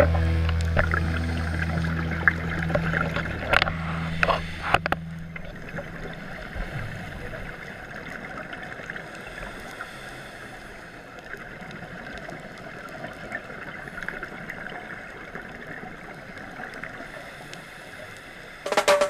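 Muffled underwater noise picked up by a camera in a dive housing: an even, featureless hiss. In the first few seconds, steady low-pitched music fades out under it, and music comes back in near the end.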